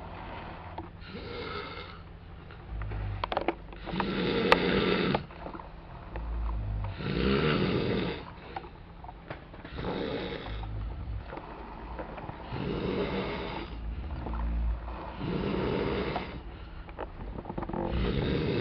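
Sleeping men snoring, one loud snore every two to three seconds, with a short click about four and a half seconds in.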